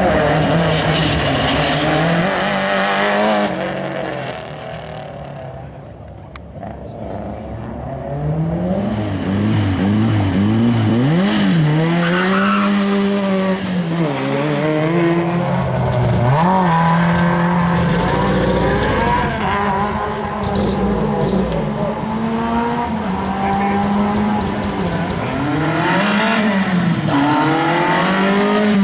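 Rally cars' engines revving hard through a slalom course. The pitch climbs and drops over and over with throttle lifts and gear changes as each car brakes and accelerates between the cones. About four seconds in the sound fades for a few seconds, then the next car comes through.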